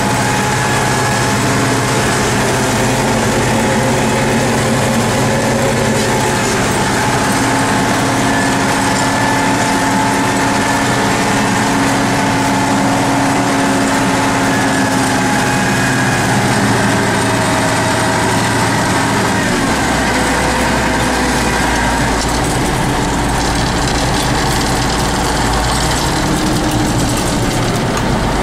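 A T-150K tractor's YaMZ diesel engine running steadily, heard from inside the cab while pulling a cultivator across the field. About twenty seconds in the sound shifts as a deeper low hum comes in.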